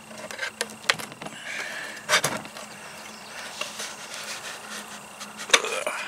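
A few sharp knocks and clicks from handling a plastic coffee canister and a marker on a plastic work surface, the loudest about two seconds in, over a low steady background.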